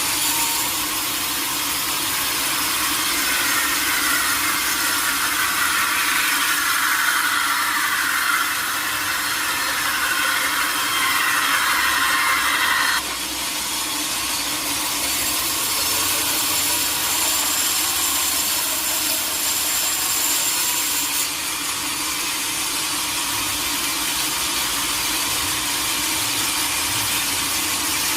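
Sawmill saw cutting through a teak log: a steady, noisy cutting sound over a constant machine hum. A sharper part of the cutting noise stops abruptly about halfway through, while the sawing carries on.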